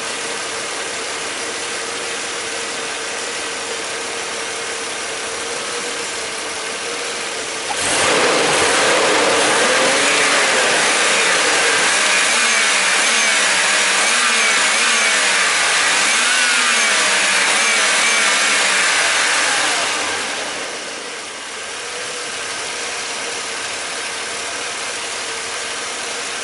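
Mercedes-Benz straight-six petrol engine idling steadily, then revved sharply about eight seconds in and held at raised revs that rise and fall for about twelve seconds, before settling back to idle. It runs very nicely throughout.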